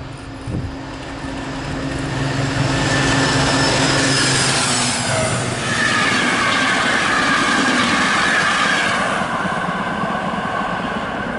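DR class 118 (V 180) diesel-hydraulic locomotive approaching and passing at speed, with a steady low engine drone. From about six seconds in, its train of old passenger coaches rushes past with loud rolling noise and a high-pitched whine from the wheels, easing off near the end.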